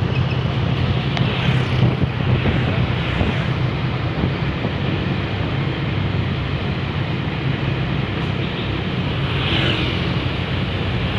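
A heavy bus engine running with a steady low drone, with road noise and wind on the microphone. A little brighter swell comes about a second in and again near the end.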